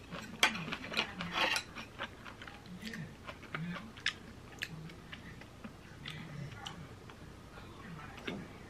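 Chopsticks and a wooden spoon clicking and scraping against a plastic plate while eating fried rice, with chewing. Light, irregular clicks, busiest about half a second to a second and a half in.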